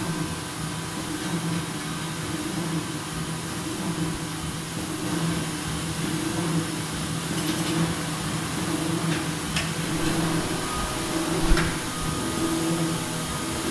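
Automatic board-flipping machine for corrugated board running: a steady low machine hum that swells and eases in an uneven pattern, with a few sharp knocks, the loudest about eleven and a half seconds in.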